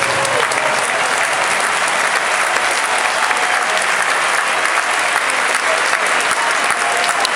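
Large ballpark crowd applauding steadily, a dense patter of many hands with scattered voices in it.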